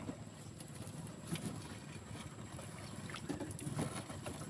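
Quiet handling sounds, a few light knocks and rustles, as a net fish trap is emptied and a fish pulled out of it in a small boat.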